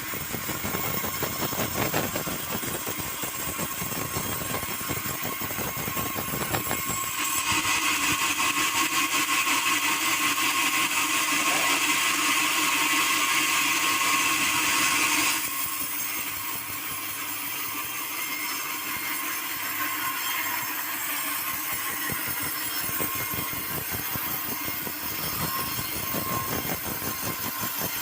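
Sawmill saw machinery running steadily, with a louder, harsher stretch for about eight seconds in the middle.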